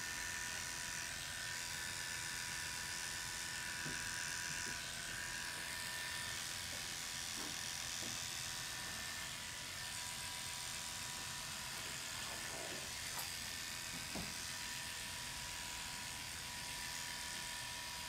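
Electric hair clippers running steadily while shaving a scalp, with a couple of small clicks about two-thirds of the way through.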